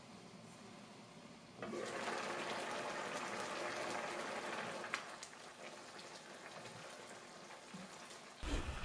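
Beef, potato and carrot stew boiling over high heat in a nonstick pan: a faint, steady bubbling with fine pops that starts about two seconds in and dies down after about five seconds. Near the end a utensil starts stirring through the stew.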